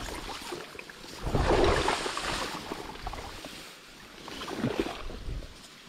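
Water sloshing and swishing in two swells, a longer one about a second in and a shorter one near the end.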